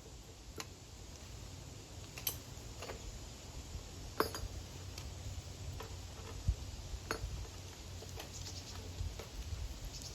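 Faint, scattered light metallic clinks, irregular and about one a second, over a low steady rumble: scrap copper pieces knocking together as they are handled.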